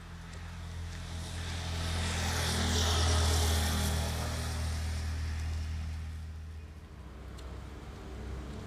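A motor vehicle passing on a road: a low engine hum and tyre hiss that swells to a peak about three seconds in, then fades away by about seven seconds.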